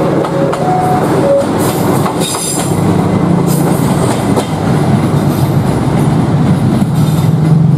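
Departing passenger train's carriages rolling past with a steady rumble and wheel clatter. A brief high-pitched squeal comes about two seconds in. A repeating two-note tone dies away in the first second and a half.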